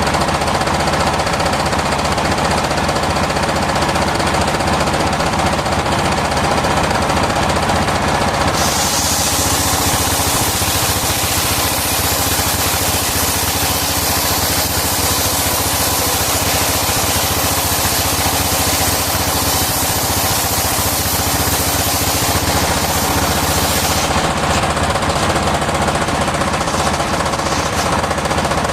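Circular sawmill running steadily with a rapid rough clatter. About eight seconds in a loud high hiss joins it as the blade cuts through timber, and it stops about sixteen seconds later when the cut ends.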